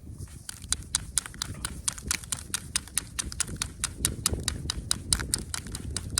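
A copper knapping tool working the edge of a flint point gives a rapid, even run of sharp clicks, about five a second, over a low rumble.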